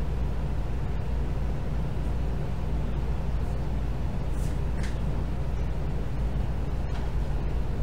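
Steady low rumble, with a faint brief rustle about four and a half seconds in.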